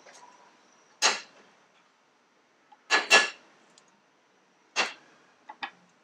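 A skillet being shifted on the stove burner as the oil is swirled to coat the pan: a brief scrape about a second in, a double one around three seconds, another near five seconds, then two faint ticks.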